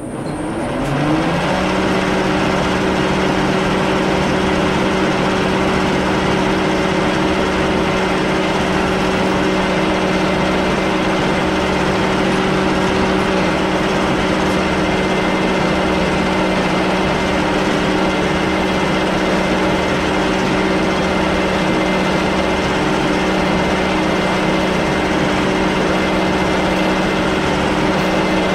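Metal lathe starting up: its motor rises in pitch for about a second, then runs at a steady speed with a constant hum while it drills holes in a steel disc.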